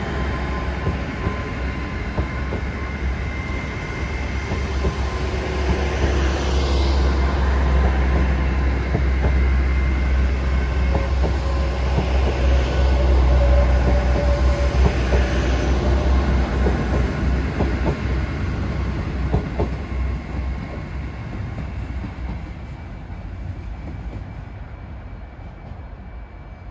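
Green passenger train pulling away on diesel power: a steady low engine hum with the wheels clicking over rail joints, rising to its loudest about halfway through and then fading as the train draws off into the distance.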